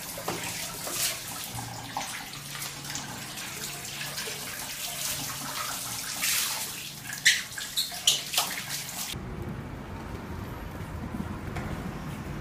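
Water spraying from a handheld shower hose onto a wet golden retriever in a tiled shower, a steady hiss and splashing with a few sharper spatters near the end. The water cuts off suddenly about three-quarters through, leaving a low steady hum.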